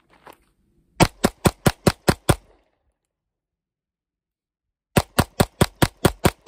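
Springfield Prodigy 2011 9mm pistol fired in two rapid strings of about seven and eight shots, roughly four to five shots a second, with a pause of about two and a half seconds between the strings.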